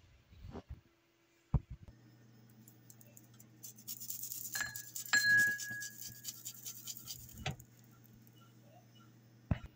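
Kitchen utensil scraping and clicking rapidly against a ceramic bowl for a few seconds in the middle, with two short ringing clinks. A few single knocks come near the start and near the end, over a steady low hum.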